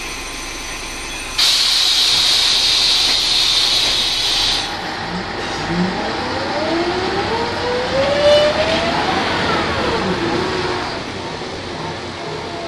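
Ikarus 280 articulated bus: a sharp hiss of compressed air from the bus's air system starts suddenly about a second in and cuts off about three seconds later. Then the Rába D10 diesel and ZF automatic gearbox whine rise in pitch as the bus pulls away, with a gear change about eight seconds in that drops the pitch.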